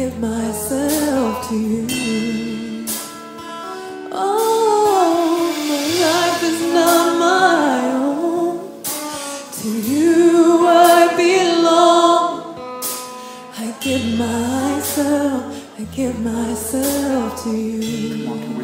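Gospel worship song: a voice sings a gliding, held melody over instrumental accompaniment with a steady bass.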